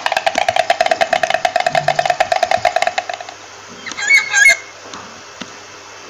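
Stork clattering its bill in a rapid, even wooden rattle that stops about three seconds in. A brief two-part call with a wavering pitch follows about a second later.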